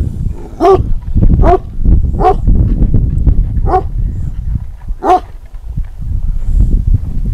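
A dog barking five times at uneven intervals, over a steady low rumble.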